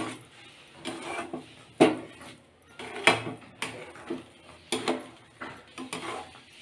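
Metal spatula stirring thick rava kichadi in a metal kadai, scraping the pan and knocking against its sides. The knocks are sharp and irregular, roughly one a second, with softer scraping between them.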